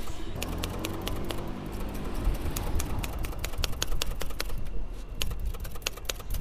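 Typewriter keys clacking in quick, irregular runs of sharp strikes, coming thicker near the end.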